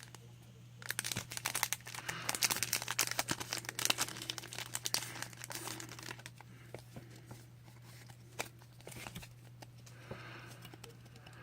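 A foil Magic: The Gathering booster pack wrapper being crinkled and torn open. The crinkling is dense for the first few seconds, then thins to scattered crackles, with a soft hiss near the end. A steady low hum runs underneath.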